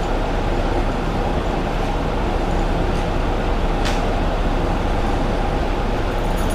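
Pneumatic air chisel running continuously, a steady loud mechanical rattle with no break.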